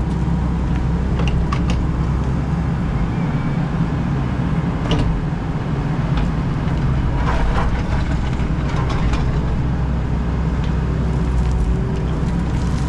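Excavator's diesel engine running steadily under digging load, with the bucket scraping and knocking through stony gravel now and then, most busily around the middle.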